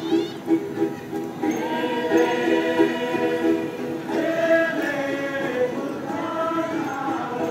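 Dayak Kenyah Datun song sung by a large group of voices together, in long held notes that move to a new pitch every second or two.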